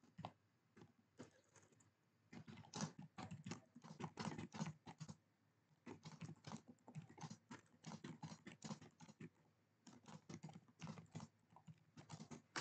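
Faint typing on a computer keyboard: quick runs of keystrokes in three bunches with short pauses between, after a few scattered single clicks.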